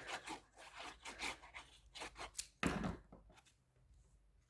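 Paper and card being handled and pressed down while a layer is glued onto a card base: light rustling and tapping, with one firmer thump on the desk about two and a half seconds in.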